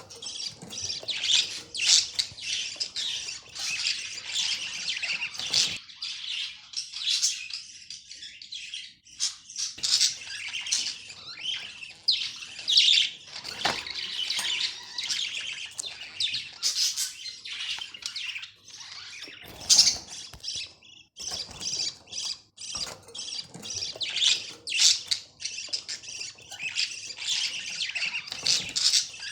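Budgerigar chattering and warbling: a dense, continuous stream of quick high chirps and squawks, broken only by a few short pauses.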